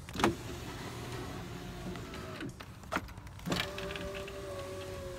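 A 2004 Chevy Tahoe's newly installed power window motor and regulator drive the door glass, a steady electric hum with a click near the start. Two knocks come around three seconds in, after which the motor runs again with a stronger, steadier hum. The new motor and regulator are working properly.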